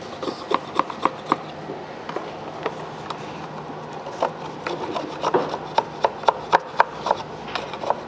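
A metal blade scraping old, crumbled foam filter mesh off a plastic blower-motor intake grille: a run of short, irregular scrapes, a few a second, growing louder and quicker in the second half.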